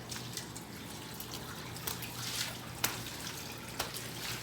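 Water from a garden hose spattering and splashing on the ground, with sharper splashes about two and three seconds in, over a steady low hum.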